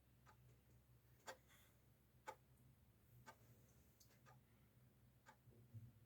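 Faint ticking of a clock, one tick a second, over a low steady hum in an otherwise near-silent room.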